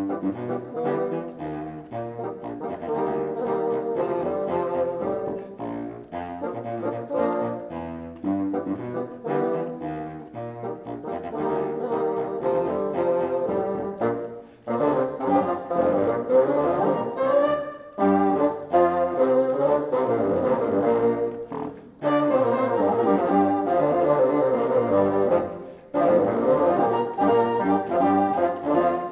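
Live recording of classical music played on bassoon, with quick moving notes that give way to loud held chords separated by short breaks near the end.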